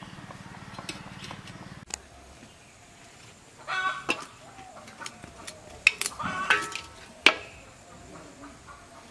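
A steady buzzing hum cuts off about two seconds in. Then domestic fowl call a few times in short clucking bursts, with sharp knocks in between; the loudest knock comes near the end.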